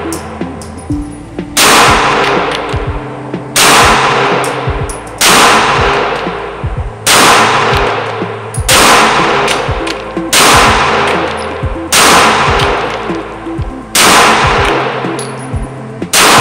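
CZ P10C 9mm striker-fired pistol firing slow, deliberate single shots, nine of them about one and a half to two seconds apart. Each report rings and decays off the walls of an indoor range.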